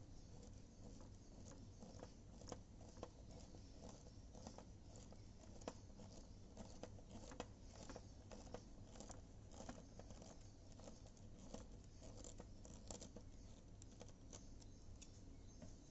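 Faint, irregular light clicks and taps, several a second, over a low steady hum.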